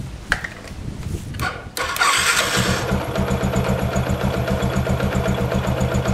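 Yamaha Jupiter MX single-cylinder four-stroke engine being started: a couple of seconds of cranking, then it catches about two seconds in and settles into a steady pulsing idle, run to test a newly fitted regulator-rectifier.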